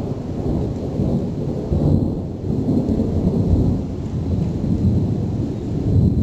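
Thunder rumbling on and on from a severe electrical storm, low and loud, swelling about two seconds in and again near the end.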